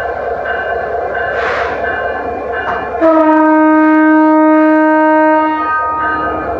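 Train locomotive horn sounding one long blast of nearly three seconds, starting about three seconds in, loud over the steady drone of the standing train. A short hiss of air comes about a second and a half in.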